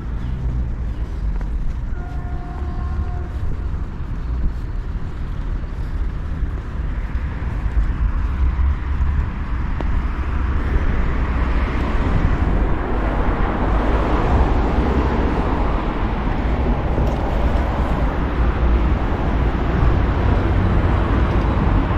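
Outdoor road-traffic noise: a steady low rumble, with vehicle noise growing louder from about a third of the way in.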